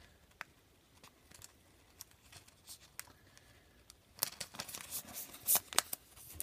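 Baseball trading cards and a pack wrapper being handled: faint scattered clicks and rustles, then a quicker run of crinkling and clicking about four seconds in.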